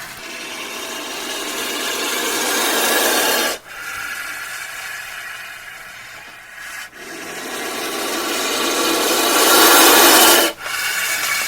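Cobra hissing in long breathy blasts. Two of them swell louder and cut off sharply, a few seconds apart, with a quieter, fading hiss between them.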